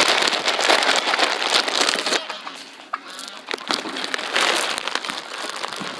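Crinkling and rustling of a bag of stuffing being handled, loudest for the first two seconds and again briefly near the end.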